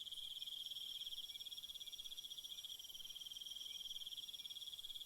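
Insects trilling: a faint, steady, high-pitched trill that pulses rapidly without a break, with a fainter higher tone above it.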